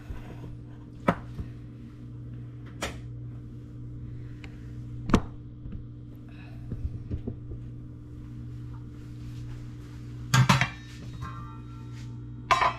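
Kitchen clatter of pots and utensils being handled: scattered sharp knocks, then a louder clatter about ten seconds in with a brief metallic ring. A steady low hum runs underneath.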